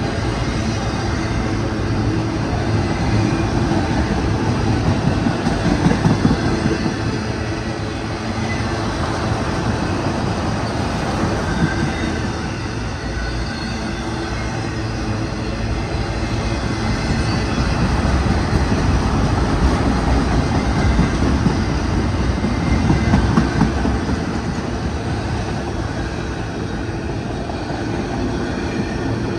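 Autorack freight cars rolling past, their steel wheels rumbling steadily on the rails, swelling louder twice as cars go by.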